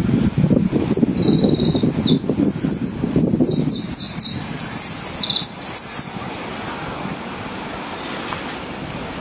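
A songbird singing a rapid run of high trills, buzzy notes and quick downward sweeps for about six seconds, then stopping. Wind buffets the microphone underneath, easing off at about the same time.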